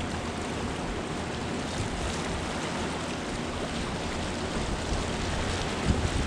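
Steady rush of turbulent whitewater churning below a dam, with a single low thump near the end.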